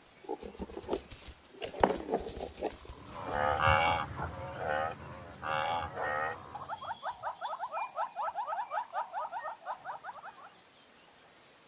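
Wild animal calls: a few knocks, then three wavering, drawn-out calls about three to six seconds in, followed by a quick run of short rising notes, about eight a second, that stops about ten seconds in.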